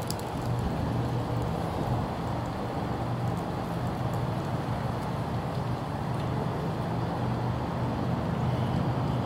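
Steady low engine rumble from a motor vehicle, holding an even pitch, over a wash of road traffic noise.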